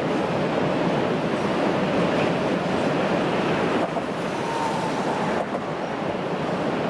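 Freight train of coal wagons behind an ET22 electric locomotive rolling past, a steady rumble of wheels on the rails.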